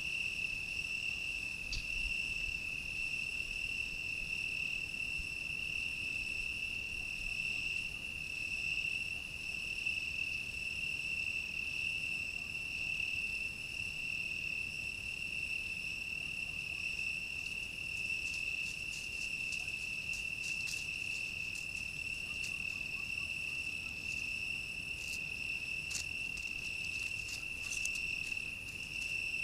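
Steady, unbroken high-pitched trilling of crickets in a night insect chorus. A few short faint clicks sound in the last third.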